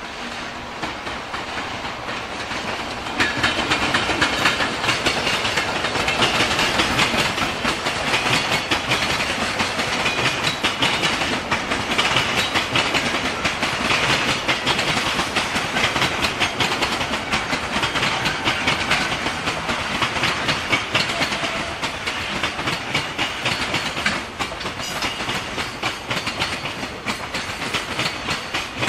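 Freight train of Koki container flat wagons rolling past close by, its wheels clattering rhythmically over the rail joints. The clatter gets louder about three seconds in as the train draws level, then carries on steadily as the wagons go by.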